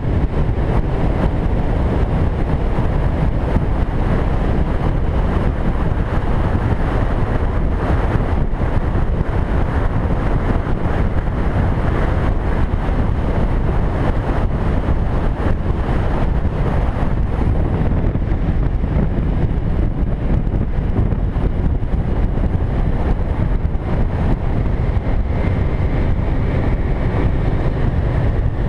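Steady wind rush buffeting the microphone of a camera on a moving cruiser motorcycle, with the engine and road noise running underneath at cruising speed.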